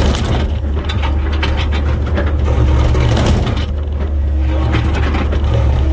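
Komatsu 120 excavator's diesel engine running steadily under load, with the bucket scraping and knocking against hard limestone rock in a trench.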